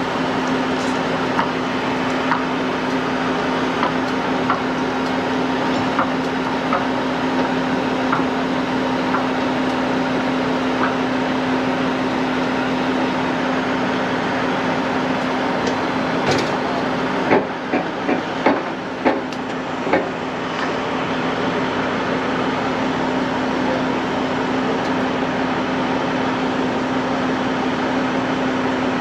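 Diesel engine of a 50-ton rotator wrecker running steadily at raised speed with a constant hum while its winches roll an overturned tanker truck upright. A handful of sharp knocks come in quick succession a little past the middle.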